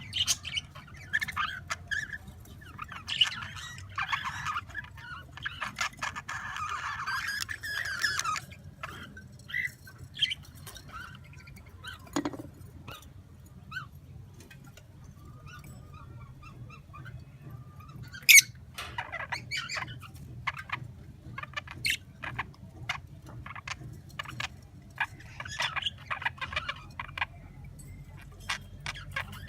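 Pet birds chirping and calling in short bursts, with a run of sharp clicks and taps through the second half.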